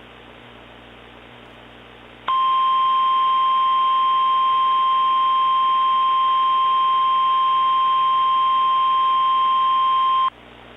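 Light static hiss, then about two seconds in an Emergency Alert System warning tone: a single loud, steady high tone, the National Weather Service's 1050 Hz warning alarm, held for about eight seconds before cutting off suddenly.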